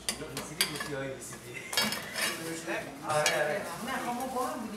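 Metal kitchenware clinking and knocking: a metal ladle, bowl and plates tapped against each other and the counter while cooked lamb-head meat is handled. There are several sharp clinks among looser clatter.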